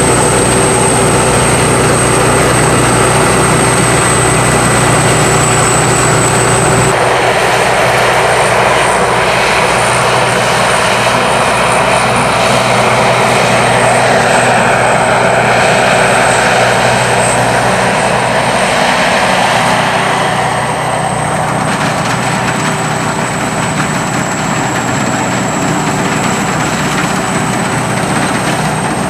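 Sakpattana SS-300 Black Bird combine harvester's five-cylinder 170 hp engine and machinery running steadily, with a high steady whine over the engine note. The sound shifts abruptly about seven seconds in, and the low engine tones drop away.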